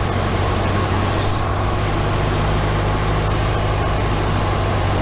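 Luscombe light aircraft's engine and propeller droning steadily, heard inside the cockpit on landing approach. A brief high chirp sounds about a second in.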